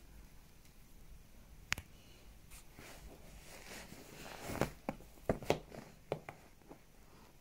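Soft rustling of a cushion and clothing, with a few light taps and clicks as a cat treads onto a lap and settles. One sharp click about two seconds in; the taps bunch together about two-thirds of the way through.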